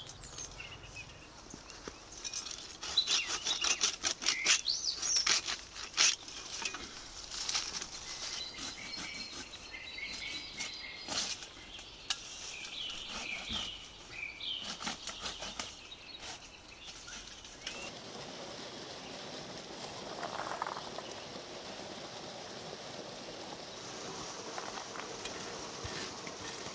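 Grass and weeds rustling and snapping as they are cut by hand with a small blade, in dense bursts of crackling strokes, while birds chirp. The cutting thins out in the second half, leaving a quieter outdoor background.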